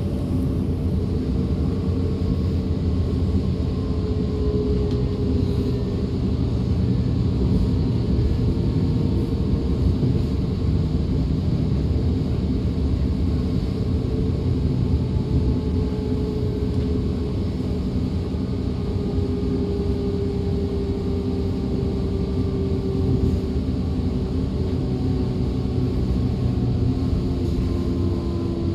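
DB class 425 electric multiple unit running, heard from aboard: a steady rumble of the train on the track with the whine of the traction drive sliding slowly in pitch, and a new rising whine coming in near the end. That whine is the sound that earned the class its nickname 'Quietschie'.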